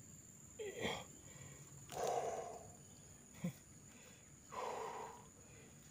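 A man's heavy breathing: a short grunt about a second in, then long, noisy exhalations about two and five seconds in, the strain of tugging on an eel that won't come out of its hole.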